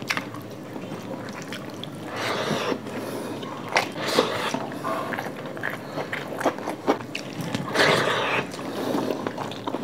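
Eating sounds of two people eating fried rice and chilli chicken by hand: chewing and wet mouth clicks, with two short hissing rustles, about two seconds in and again near the end.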